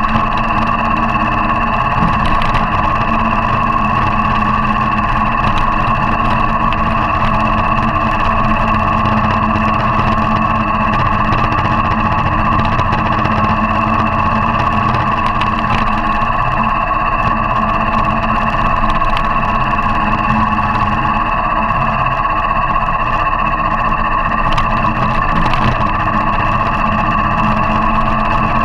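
Motorcycle engine running steadily under way on a gravel track.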